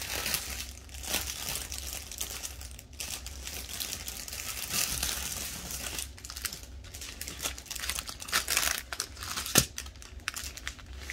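Plastic bags of diamond painting drills crinkling as they are handled and sorted, with one sharp tap near the end.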